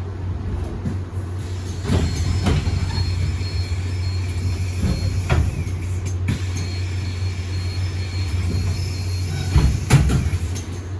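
Iveco Urbanway 18 Hybrid articulated bus running with a steady low drone and a faint high whine that comes and goes. Several sharp knocks or rattles come through, the loudest near the end.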